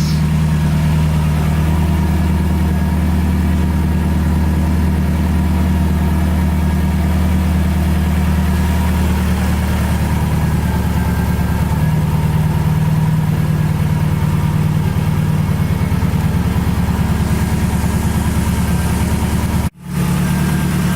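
Subaru Forester's flat-four boxer engine idling steadily, with a momentary break about twenty seconds in.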